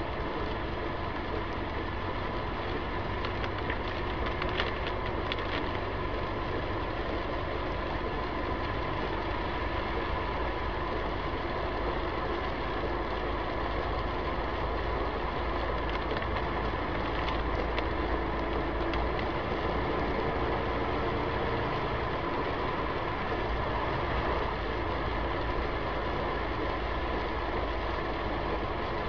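Steady road and engine noise of a car driving on a wet road, heard from inside the cabin through a dashcam's microphone, with a constant low rumble.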